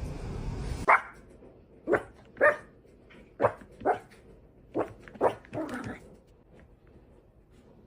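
A dog barking: about eight short, sharp barks in an uneven run. Before them comes a second of rushing noise that cuts off suddenly.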